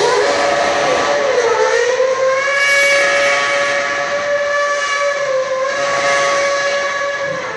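Red Bull Formula One car's 2.4-litre V8 engine held at high, steady revs while the car spins donuts on wheelspin. The pitch dips and climbs again about a second in, and drops near the end.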